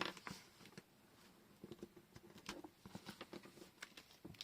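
Faint, irregular light clicks and taps of washi tape rolls and paper being handled.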